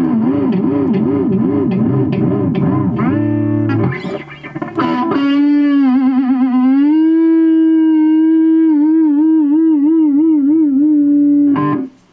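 Squier Stratocaster electric guitar played through an amp: long held lead notes that waver and bend in pitch with wide vibrato. There is a short quieter stretch of picked notes about four seconds in, and the playing stops abruptly near the end.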